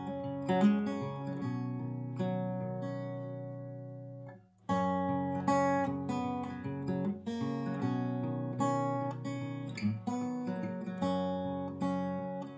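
Background music: acoustic guitar playing chords, with a brief break about four and a half seconds in before it picks up again.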